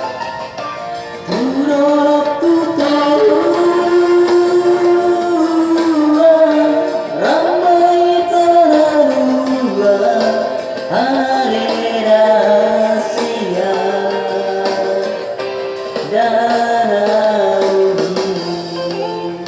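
A solo voice singing a slow Batak-language song over backing music, with long held notes that waver and slide between pitches.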